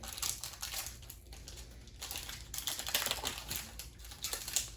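Foil trading-card booster pack wrapper crinkling and crackling as it is handled and opened.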